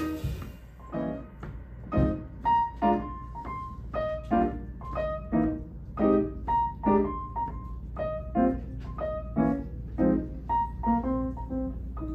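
Grand piano playing alone in a jazz tune: single notes and chords at an easy pace, each ringing out and fading. The drums and cymbals stop right at the start, leaving the piano unaccompanied.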